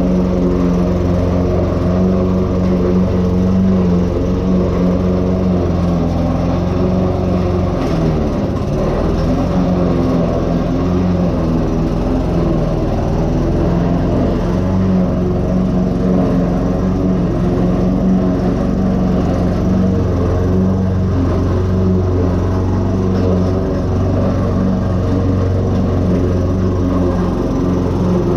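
Toro Recycler self-propelled petrol lawn mower running steadily while cutting overgrown grass and weeds.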